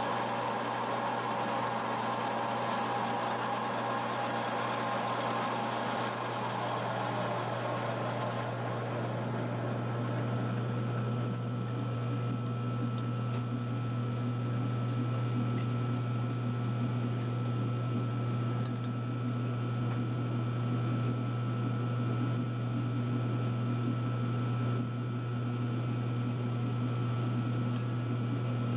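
Metal lathe turning a turbo compressor housing while a boring bar cuts its bore to fit a larger billet wheel; the cutting noise stops after about nine seconds as the spindle is stopped. A steady low hum carries on, with a few light clicks and rattles as the housing and metal chips are handled.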